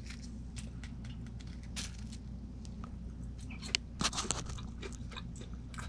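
Close-up crunching and chewing of breaded, deep-fried black morel mushrooms: irregular crisp crunches, with a louder cluster about four seconds in, over a steady low hum.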